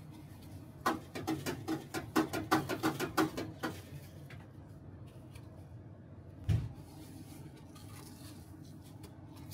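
Panko breadcrumbs crunching and rustling as gloved hands pat and press them onto a raw beef patty in a steel tray: a quick run of about fifteen pats, starting about a second in and lasting nearly three seconds. A single low thump follows, past the middle.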